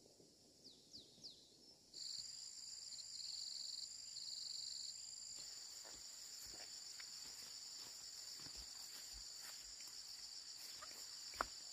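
A few short falling bird chirps, then, after a sudden change about two seconds in, insects chirring with a steady high-pitched buzz, pulsing at first and then continuous. Scattered light clicks and rustles come through, with one sharp click near the end.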